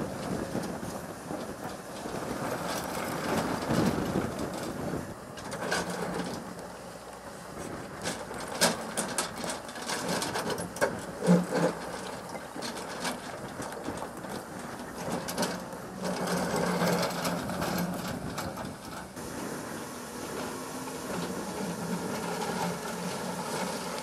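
Tracked JCB excavator running as its bucket digs and scrapes through loose rock fill. Several sharp clacks of stones knocking together come in the middle.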